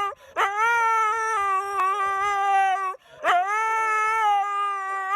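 A dog howling in long, steady-pitched notes: two howls with a short break for breath about three seconds in.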